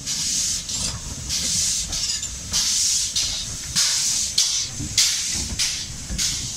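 GWR 5700-class pannier tank locomotive No. 4612 moving slowly past, light engine: rhythmic puffs of hissing steam, about one a second, over a low rumble of wheels and motion, with a sharp clank about five seconds in.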